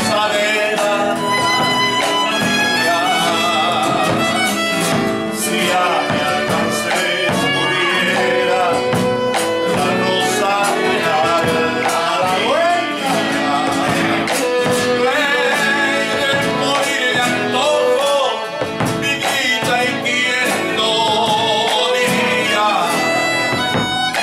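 Instrumental interlude of an Argentine zamba: a violin plays the melody over two strummed and plucked nylon-string guitars.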